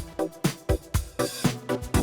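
Background electronic music with a steady, fast beat of about four beats a second.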